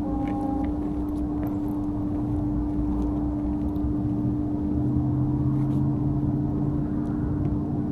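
A steady mechanical drone holding one constant pitch, with a second, lower tone joining a little past halfway through.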